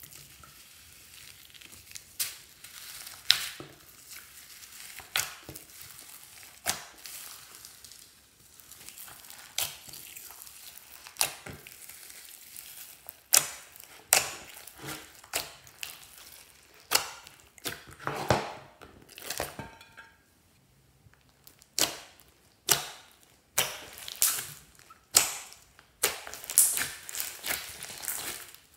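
Hands kneading and squeezing glossy slime mixed with foam beads and tinsel: soft squishing broken by sharp, irregular pops and clicks of trapped air, coming faster in the last third.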